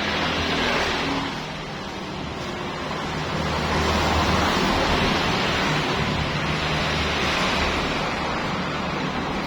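Washing machine's motor running with a steady rushing hiss like spraying water, swelling a little partway through.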